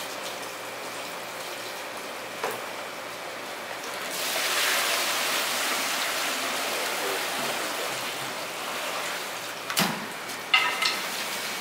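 Water running with a steady hiss that swells louder for a few seconds about four seconds in, with a few sharp knocks, the loudest near the end.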